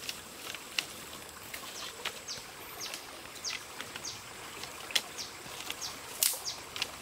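Dry sticks clicking and cracking as they are handled, with a few sharp cracks, the loudest about five and six seconds in. A bird calls over it in short falling chirps, about two a second.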